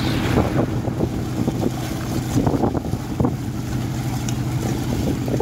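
Motorboat engine running with a steady hum, with wind buffeting the microphone and a few knocks in the first half.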